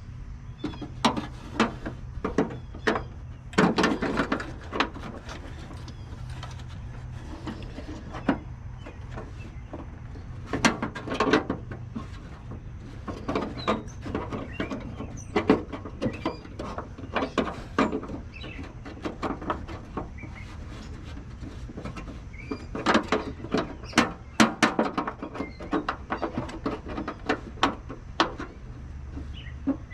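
Hard plastic parts of a car's running light housing clicking, creaking and scraping in irregular bursts as the plastic-threaded fastener is twisted by hand. It spins without coming loose because its plastic threads are stripped.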